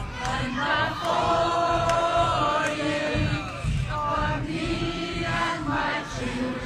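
A large crowd of marchers singing together, many voices in unison with some notes held for a second or more.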